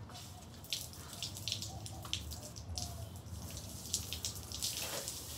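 Water from a garden hose spraying and splashing onto a person's body and a wet concrete floor, in uneven, irregular splashes.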